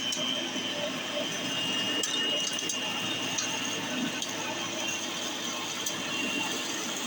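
Hoover WindTunnel Platinum direct-air upright vacuum running steadily: a high whine over the motor and airflow, with occasional light clicks.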